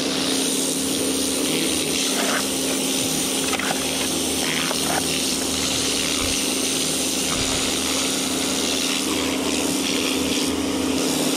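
Kärcher K2 electric pressure washer running: its motor-driven pump gives a steady hum under the hiss of the water jet spraying onto a concrete block wall.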